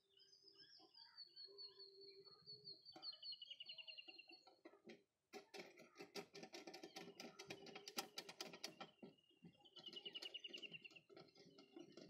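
Faint birdsong: whistled notes gliding down and buzzy trills, with a quick run of rapid clicks in the middle.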